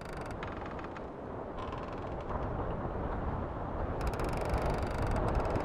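Wood creaking in several drawn-out creaks, the kind of ship-timber creak laid over a pirate-ship scene, over a steady low rumble.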